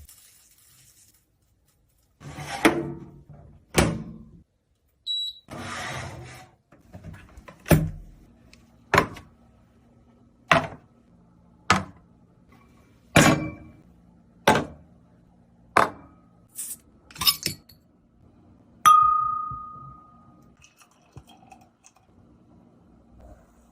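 A series of sharp knocks, about one every second and a half, after two short scraping rustles, then a single clink that rings briefly.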